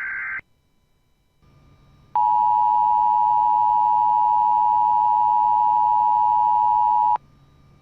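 Emergency Alert System broadcast: a high-pitched data burst, the tail of the SAME header, cuts off in the first half second, then after a short quiet gap the EAS two-tone attention signal sounds, one loud steady dual tone held about five seconds before stopping abruptly, the signal that an emergency warning message follows.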